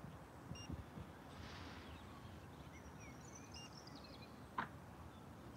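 Faint short electronic beeps from a quadcopter drone, one about half a second in and another three seconds later, with birds chirping faintly. A sharp click about four and a half seconds in as the drone is handled is the loudest sound.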